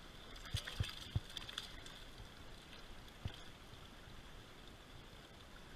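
Shallow rocky creek running steadily, with a few soft splashes and knocks in the first second and a half and one more about three seconds in, as a hand reaches into the water and grabs a trout.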